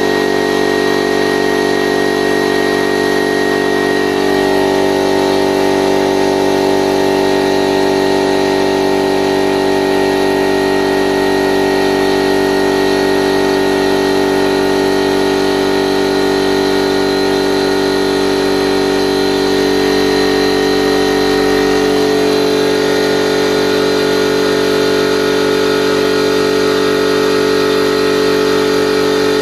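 Piston air compressor running steadily as it pumps up its tank, with a machine drone made of several steady tones. Its tone shifts slightly about four seconds in and again a little past the midpoint.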